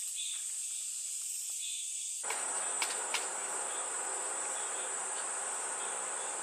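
Insects chirring steadily at a high pitch. About two seconds in, a wider outdoor background hiss joins them, and a couple of sharp clicks sound shortly after.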